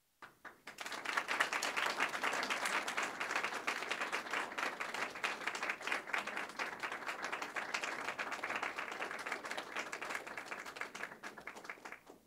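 Small audience applauding: a few scattered claps at first, then steady clapping that thins out and stops near the end.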